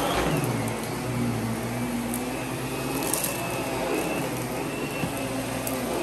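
Miele vacuum cleaner running steadily, its motor note dipping and rising a few times.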